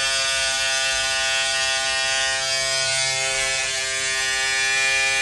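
Electric hair clippers running with a steady buzz, cutting the short hair close around the ear.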